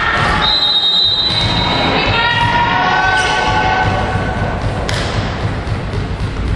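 Indoor volleyball match: repeated thuds of the ball and players' feet on a wooden court, with voices calling and shouting and a high steady tone from about half a second in to two seconds in.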